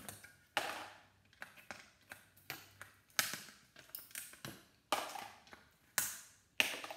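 Pliers gripping and twisting aluminum electrolytic capacitors off a circuit board: a run of about a dozen sharp clicks and snaps, unevenly spaced.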